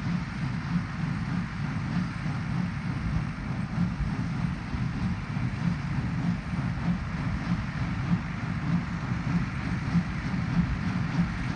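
Massey Ferguson 5711 Global tractor's four-cylinder diesel running steadily under load while driving an MF 1840 small square baler, with a regular pulsing from the working machinery.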